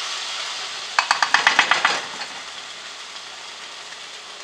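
A pan of saucy food sizzling on the stove. About a second in, a quick run of about ten sharp clicks lasts about a second.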